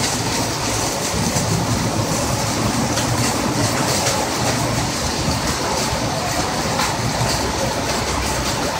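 Hailstorm: hail and heavy rain pelting a parking lot, a loud, steady, dense noise with scattered small sharp ticks.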